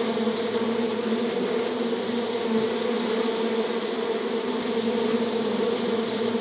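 A mass of honeybees buzzing together: a steady, even hum.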